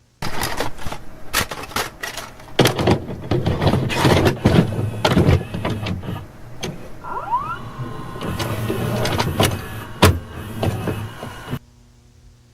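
A busy run of knocks, clicks and rattles, with a short rising squeak about seven seconds in and a sharp knock near the end; it starts and stops abruptly.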